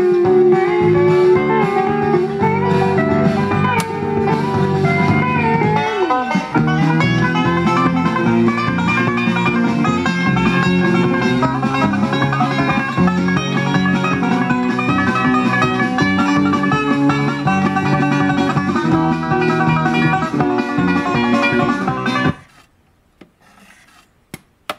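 A guitar-led blues record playing on a Pioneer PL-41 turntable, with a sliding guitar note about 6 seconds in. The music stops abruptly about 22 seconds in, and a few faint clicks follow.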